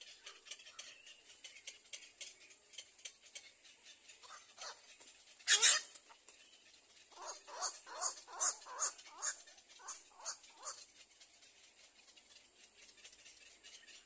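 Little egrets calling at the nest: one loud harsh squawk about five and a half seconds in, followed by a quick run of about eight short calls over some four seconds, with faint high ticking throughout.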